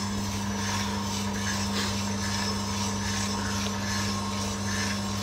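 Small drum coffee sample roaster running mid-roast, before first crack: a steady low hum from its motor and fan, with the rustle of beans tumbling in the drum.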